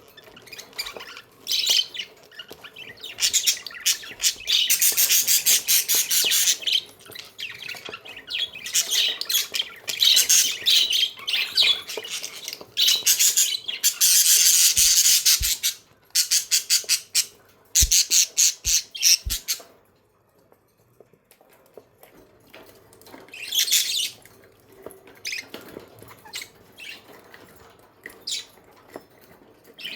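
Pet budgies chirping and chattering, rapid high warbling calls in loud stretches for most of the first twenty seconds, then only a few short chirps.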